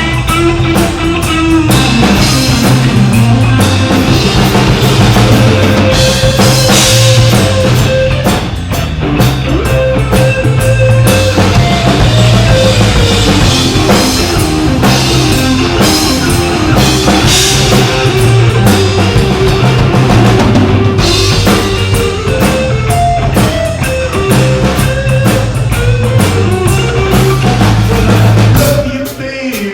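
Live rock band playing an instrumental passage with no vocals: drum kit, guitar and bass.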